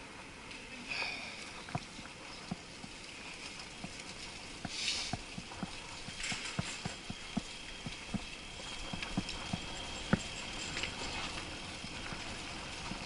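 Irregular light clicks and knocks from a slowly ridden bicycle and its camera mount, about one or two a second, over a low hiss of street noise, all muffled by the action camera's waterproof housing.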